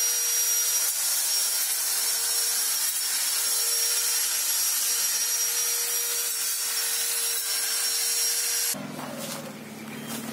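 Angle grinder fitted with a toothed circular saw blade on a long bamboo pole, running at a steady high whine and cutting through a tree branch with a rasping sound. The sound cuts off abruptly near the end.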